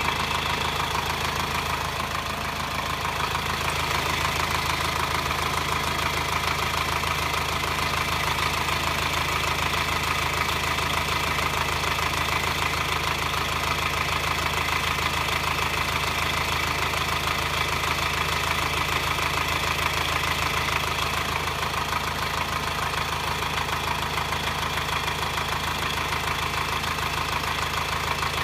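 2009 Subaru Forester's 2.0 boxer diesel running steadily at low revs with a metallic clattering. The clatter comes only when the engine is hot; its cause is unknown.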